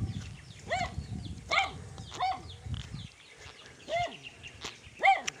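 An animal giving short, high calls that rise and fall in pitch, about five of them at uneven gaps, the loudest near the end. A low rumble of movement runs beneath them and stops about three seconds in.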